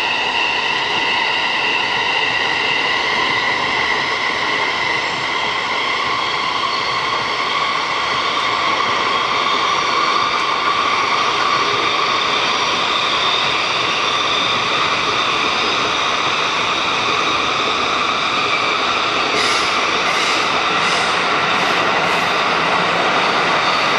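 JR East 205 series electric commuter train running at speed, a steady rumble of wheels and rails with several sustained whining tones that drift slowly in pitch. A few brief high ticks come near the end.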